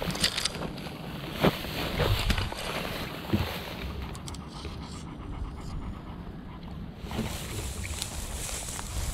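Wind buffeting the microphone over the rustle of tall dry grass as a hunting dog and the person filming push through it. A couple of sharp knocks stand out in the first half.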